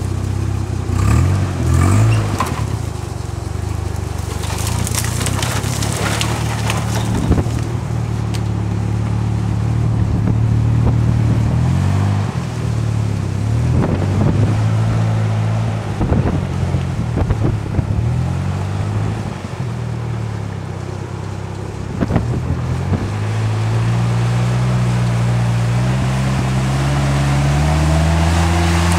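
Off-road vehicle's engine running at low speed over a rough trail, with repeated crunches and scrapes; near the end the engine revs up, rising steadily in pitch.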